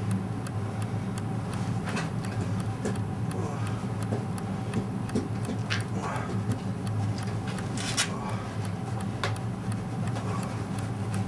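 A steady low hum with faint, rapid, even ticking running through it, and a few sharper clicks.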